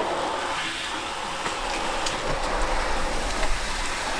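Water pattering and trickling steadily, with small drips, as it drains off salted napa cabbage and a plastic sheet.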